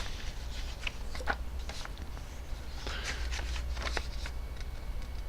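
Plastic LEGO parts being handled and turned over, giving scattered light clicks and taps over a steady low hum.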